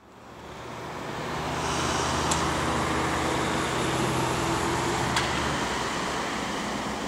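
Road traffic noise, a steady rush of passing car tyres and engines that fades in over the first two seconds, with two light clicks.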